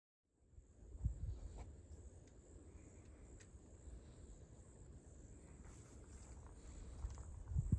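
Insects trilling steadily at a high pitch, with footsteps and a few low thumps about a second in and again near the end.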